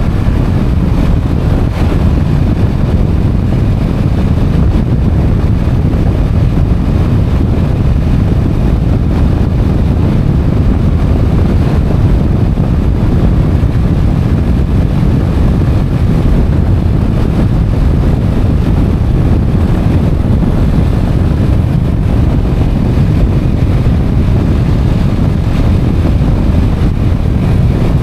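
Motorcycle riding along at a steady speed: a loud, even wind rumble on the helmet-mounted microphone, with the bike's engine and road noise underneath.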